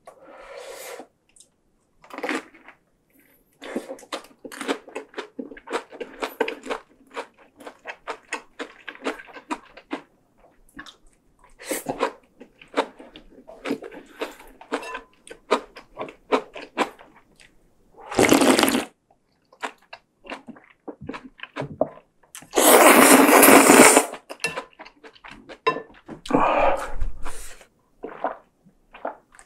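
Close-miked mukbang eating sounds: wet chewing of a rice-paper spring roll with many small mouth clicks, then two long, loud slurps of rice noodle soup, the longer about two-thirds of the way through. Near the end come the sounds of drinking a glass of beer.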